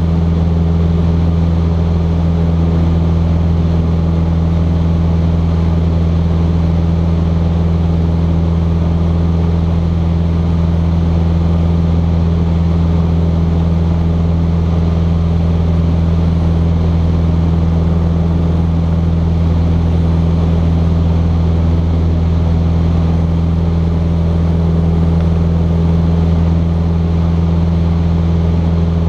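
Cessna 150's Continental O-200 four-cylinder engine and propeller droning steadily at a constant pitch, heard inside the small cockpit.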